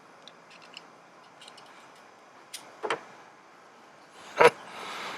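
Small plastic clicks and taps as a car's interior light fitting and its LED bulb are worked by hand, then one sharp snap near the end with a brief rustle around it.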